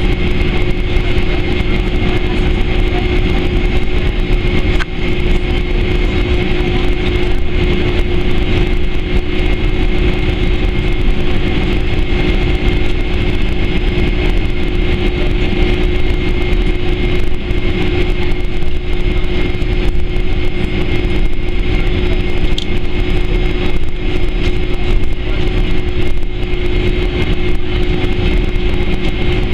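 Boeing 767-300ER cabin noise while taxiing: the jet engines' steady whine, with a constant low hum and a high tone, over a steady rumble and hiss.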